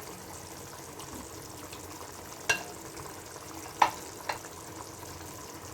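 Masala gravy sizzling steadily in a pan as marinated quail pieces go in, with three sharp metallic clinks of a utensil about halfway through.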